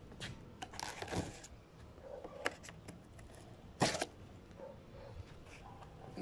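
Knife scraping and cutting at the packing tape on a cardboard box: scattered short scrapes and taps, the loudest a sharp one about four seconds in.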